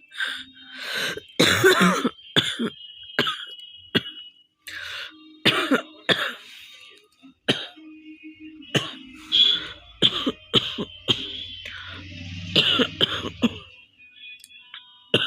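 A woman coughing over and over, a dozen or so short irregular coughs with some throat clearing: a genuine cough from a cold, not a faked one.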